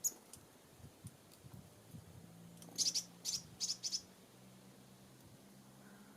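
Small songbird at a feeder calling: one short high chirp at the start, then a quick run of four high chirps about three seconds in.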